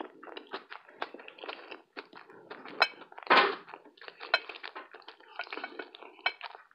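Close-up chewing of a slice of pizza: irregular wet mouth clicks and smacks, with one longer, louder burst a little over three seconds in.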